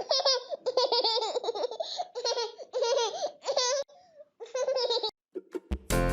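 A baby laughing in a string of high-pitched bursts. Bright children's music comes in near the end.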